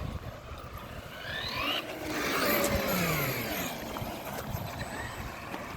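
Electric RC truck motors whining as they speed up and pass by, the pitch climbing and then sliding down, over the rumble of tyres on pavement. The loudest pass comes about halfway through.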